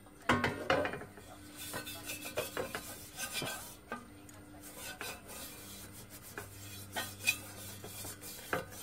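A pad on a stick rubbing and scraping across the hot inside of a copper pan as molten tin is wiped on during retinning, with irregular clinks and knocks of metal. The loudest knocks come about a second in and again near the end.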